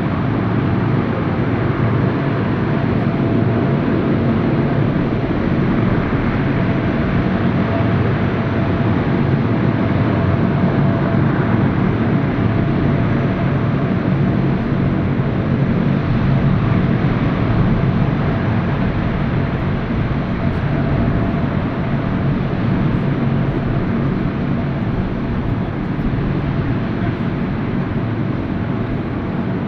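Allison T56 turboprop engines of C-130H Hercules transports running at ground idle, a loud, steady propeller drone with a steady higher whine over it.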